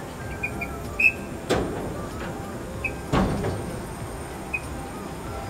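Steel shipping container door pushed on by hand: two sharp metallic clanks about a second and a half apart, with a few short high squeaks of metal, over a steady low hum.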